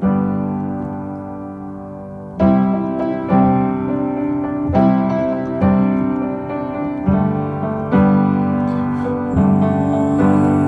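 Background music: an instrumental passage of a song, with chords struck about every second or so and left to ring and fade.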